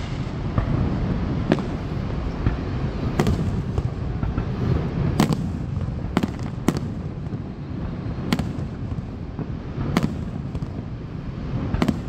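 Aerial fireworks shells bursting, about eight sharp bangs at irregular intervals a second or two apart, over a steady low rumble.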